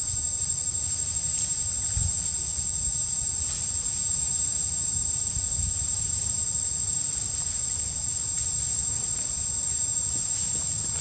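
Insects droning steadily in the surrounding vegetation, a continuous high-pitched buzz, over a low rumble.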